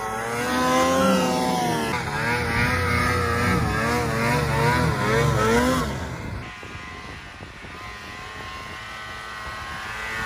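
Snowmobile engine revving up and down hard, its pitch swinging as the throttle is worked through turns. About six seconds in it drops to a quieter, steadier sound, then builds again near the end.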